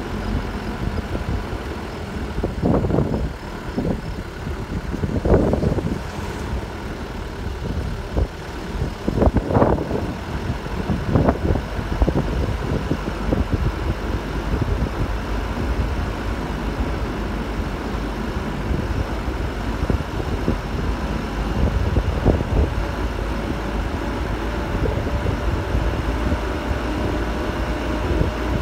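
A vehicle driving along a dirt track: steady low engine and tyre rumble, with a few louder knocks from bumps in the first dozen seconds or so.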